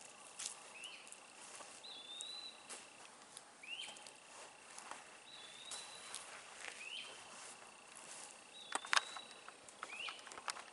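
Footsteps crunching on sand and twigs along a creek bed, loudest near the end. Behind them a bird repeats a short two-part call about every second and a half, a quick rising note then a higher slurred one, and a steady high thin tone sounds for a few seconds at a time.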